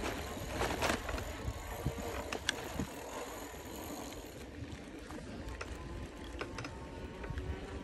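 Bicycle being ridden: a steady low rumble of tyres and wind on the microphone, with scattered clicks and rattles from the bike and its handlebar load, a few louder knocks near the start.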